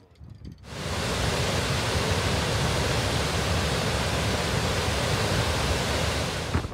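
Steady, even rush of falling water from the Goðafoss waterfall, starting abruptly under a second in after a short quiet stretch.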